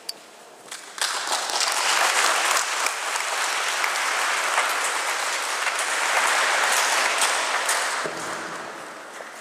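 Audience applauding. The applause starts suddenly about a second in, holds steady, and dies away near the end.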